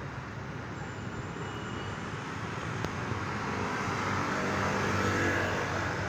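Road traffic: vehicles going by on a busy multi-lane street, one passing close and growing louder toward about five seconds in.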